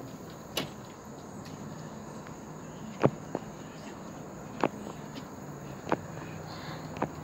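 Steady high trilling of crickets, crossed by about six sharp, short cracks at irregular intervals as a gray squirrel bites open in-shell peanuts.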